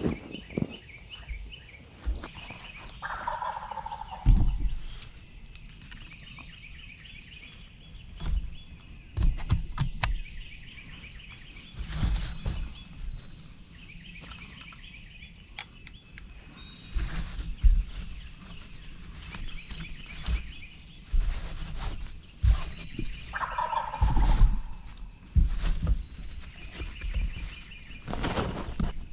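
Wild turkey gobbler gobbling from the roost twice, a rattling call about three seconds in and again after about twenty seconds. A small bird trills repeatedly in between, with scattered low thumps.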